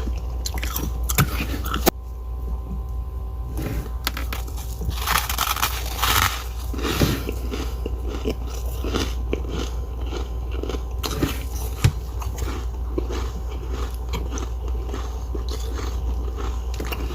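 Powdery freezer frost being bitten and chewed, with irregular crispy crunches and a denser crunching stretch about five to six seconds in, over a steady low hum.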